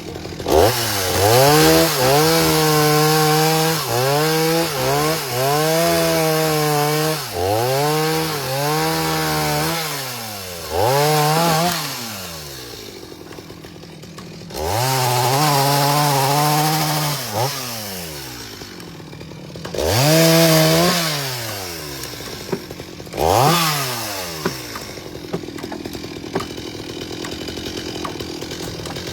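Chainsaw's two-stroke engine revved hard again and again, climbing to full speed and dropping back to idle about seven times. While held at full speed the note wavers, as it does when the chain is cutting into the wood.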